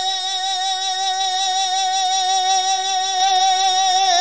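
A man singing a naat, holding one long note with a slight vibrato and no accompaniment; the pitch moves on right at the end.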